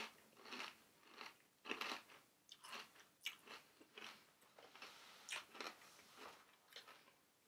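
A person chewing hard pork crackling, with faint, irregular crunches about twice a second.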